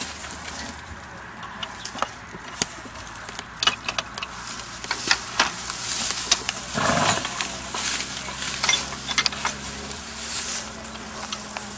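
Scattered small metal clicks and clinks from hands and a tool working on the cutter mechanism of an old horse-drawn mowing machine, with crackling of dry straw. A brief rushing burst about seven seconds in is the loudest moment, and after it a low steady hum continues.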